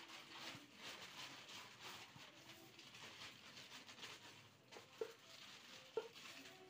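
Near silence: faint room tone, with two short sharp taps about a second apart near the end.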